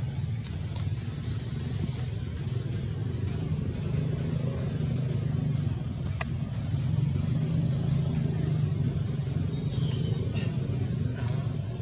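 A steady low rumble from an engine running nearby, with a few faint clicks.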